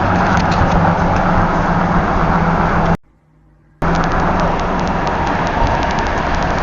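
Loud, steady car noise, road rumble and engine hum, as heard from a moving car. It cuts out abruptly for under a second about three seconds in, then resumes.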